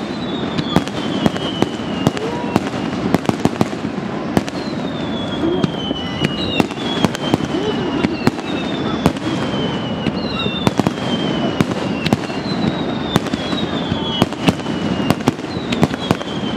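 Aerial fireworks going off: many sharp bangs and pops through the whole stretch, with a run of whistles that each fall in pitch over a second or two, repeating every second or two. Under them runs the chatter of a crowd.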